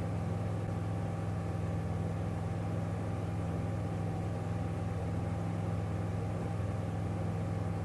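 VL3 ultralight's engine and propeller running steadily at reduced throttle, heard from inside the cockpit as an even low hum with no change in pitch.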